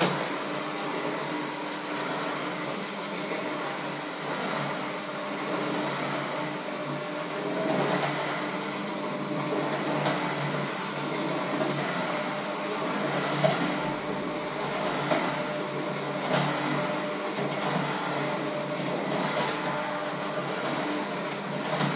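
Electric hand mixer running steadily in a bowl, its beaters now and then clicking against the bowl.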